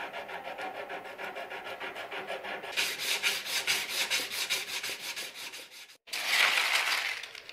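Sandpaper rubbed by hand over a burlap micarta knife handle in rapid, even back-and-forth strokes, getting much louder about two and a half seconds in. After a brief break near six seconds comes a louder, continuous scratchy rub.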